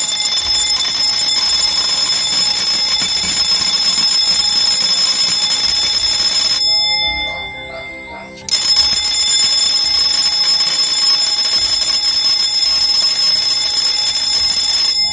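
Electric alarm bell ringing continuously, set off together with the lamp by a PIR motion sensor detecting movement. It stops and dies away about seven seconds in, starts again sharply a second and a half later, and cuts off near the end.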